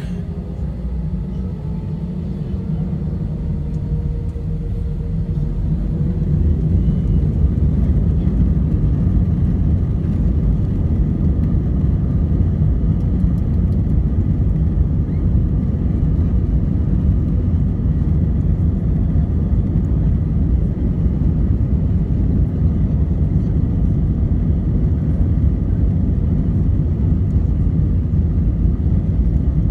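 Airbus A320 jet engines and cabin noise heard from a window seat inside the cabin: a steady low rumble that grows louder about five seconds in and then holds.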